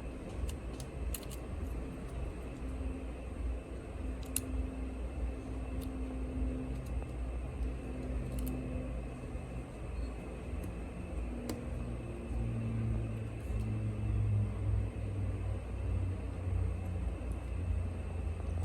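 A steady low rumble and hum, with a few faint clicks scattered through it.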